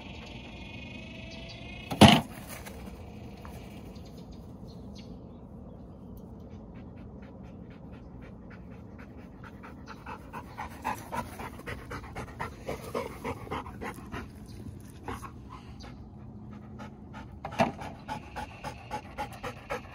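Golden retriever panting hard, the breaths coming as quick, even pulses from about halfway through. A single sharp, loud thump about two seconds in, and a smaller one near the end.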